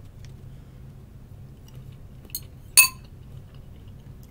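Two clinks of hard objects about half a second apart, the second loud and sharp with a brief ringing tone, over a faint low hum.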